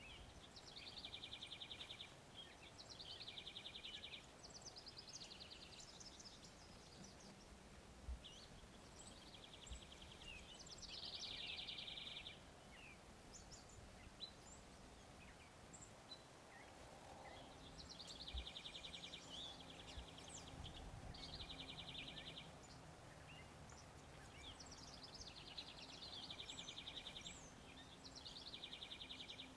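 A small songbird singing a fast, even trill over and over, each trill about a second long, in runs with pauses between, and faint high chirps scattered in between.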